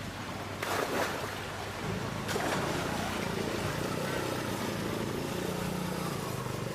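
A motor engine running steadily under a wash of noise, with its low hum coming in about two seconds in and shifting slightly in pitch, and a couple of short knocks early on.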